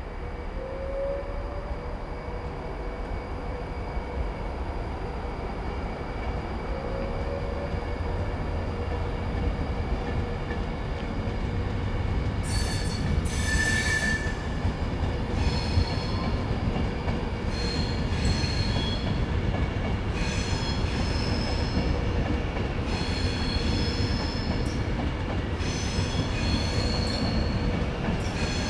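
Virgin Trains Class 390 Pendolino electric train moving slowly past the platform: a steady low rumble that grows louder, with two short rising whines in the first several seconds. From about halfway, high-pitched wheel squeals come and go repeatedly.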